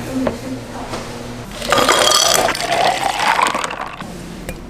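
A countertop blender motor runs in a short loud burst about two seconds in, a hiss with a whine that rises in pitch, over a low steady hum.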